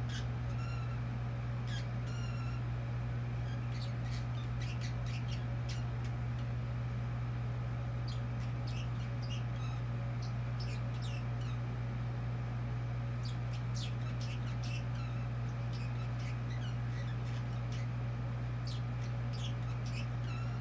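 A pet chattering: many short, quick chirps and clicks, coming in little runs, over a steady low hum.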